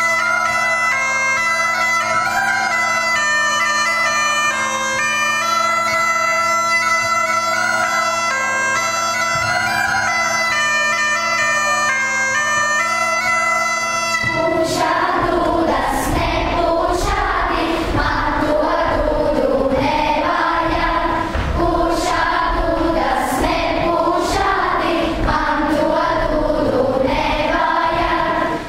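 A group of children playing small wooden folk whistles in unison over a steady low drone, with a bagpipe-like sound. About halfway through the whistles stop and the children sing together as a choir, with percussion hits keeping time.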